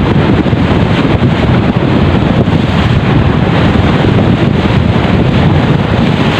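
Strong wind buffeting the microphone, with waves breaking and splashing against the shoreline boulders.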